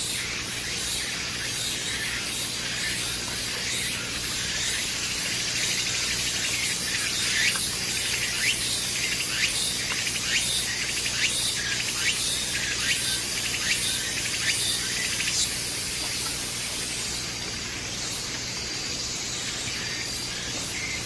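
Forest ambience: a steady high hiss of insects, with many short bird chirps coming and going through the middle of the stretch.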